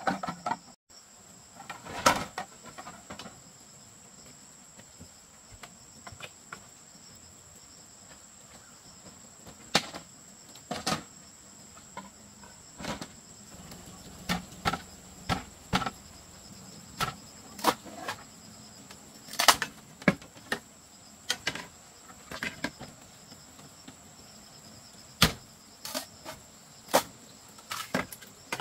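Insects chirring steadily at a high pitch, with irregular sharp knocks and taps about once a second through the second half, one louder knock about two seconds in.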